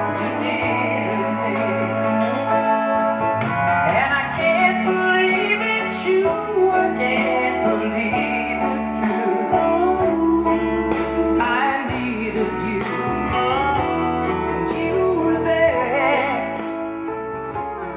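A song with singing and guitar played through a 12-inch Wharfedale loudspeaker on test. The bass sounds round and the overall sound clear.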